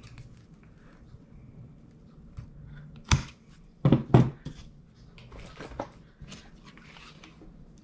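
Craft tools handled on a tabletop: a sharp knock about three seconds in and two more in quick succession a second later, with softer clicks and rustling between.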